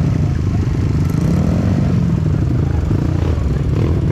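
Dirt bike engine running, its revs rising and falling about a second and a half in.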